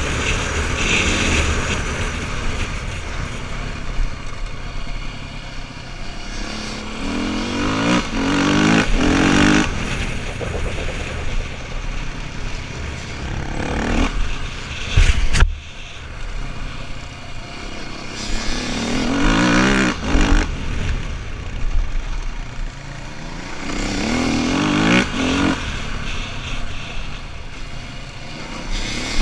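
Enduro motorcycle engine heard close up from the rider's helmet, revving up in rising pulls several times as it accelerates and easing off between them. A single sharp knock comes about halfway through.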